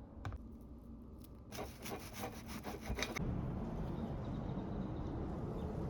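Quick rasping scraping strokes, starting about a second and a half in and lasting about a second and a half, followed by a steady, louder low rushing noise.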